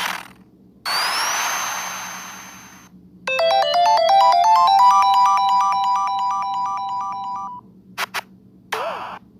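A run of separate electronic sound effects. A short burst and a noisy swoosh with a rising tone come first. The loudest is a synthesized ringtone-like jingle of quick rising notes that settles into trilling between two notes for about four seconds, followed by two quick clicks and a short burst near the end.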